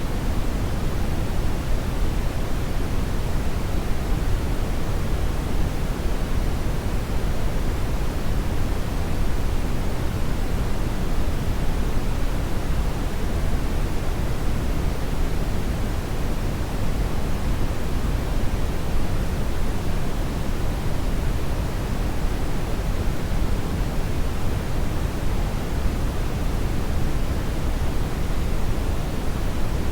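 Hair dryer blowing steadily: an even, unbroken rushing hiss, heaviest in the low range and thinning toward the top, with no motor whine standing out and no change in level.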